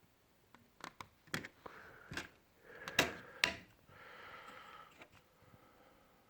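A run of sharp clicks and snaps with scraping in between, the loudest about three seconds in: the hard plastic parts of a laptop being handled and pried during disassembly.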